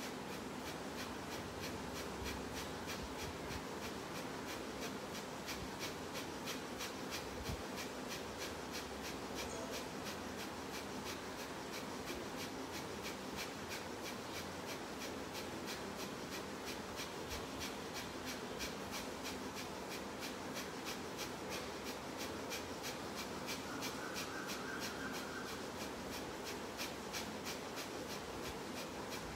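Kapalbhati breathing: quick, forceful exhalations snorted out through the nostrils in a steady, even rhythm, about three a second, each followed by a passive inhale.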